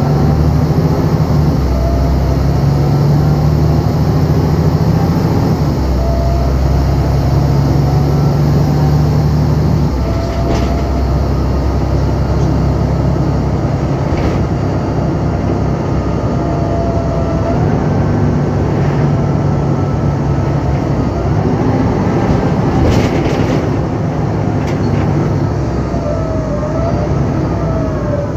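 Volvo B7LA articulated city bus running under way, a loud diesel rumble with a faint whine that rises and drops back several times.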